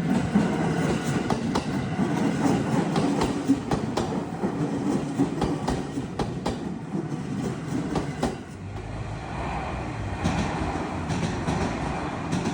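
Electric train running over the level crossing, its wheels clacking over the rail joints in a steady string of sharp clicks over a continuous rumble.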